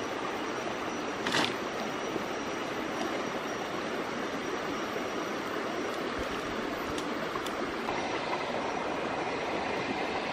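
Shallow rocky stream flowing steadily. About a second and a half in, a brief crackle of dry branches as a bundle of sticks is dropped onto the stones.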